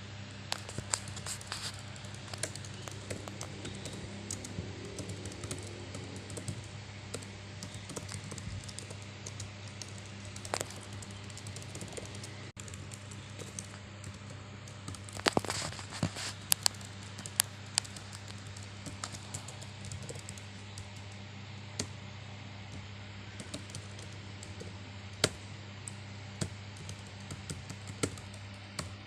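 Irregular sharp clicks and taps over a steady low hum, with a cluster of louder clicks about halfway through.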